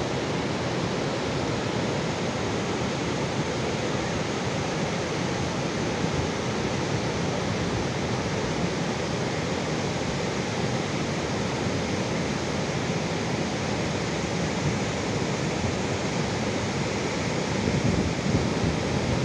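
Flash flood: a muddy debris flow of floodwater and stones rushing down a mountain river, a steady noise without a break.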